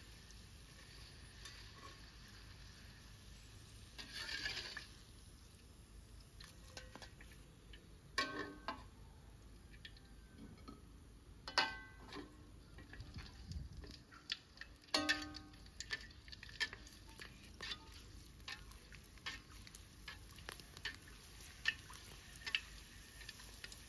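Shrimp crackers deep-frying in hot oil in a wok with a light sizzle, briefly louder about four seconds in. A steel spatula and skimmer clink and scrape against the wok many times, the loudest ringing clinks about 8, 11 and 15 seconds in.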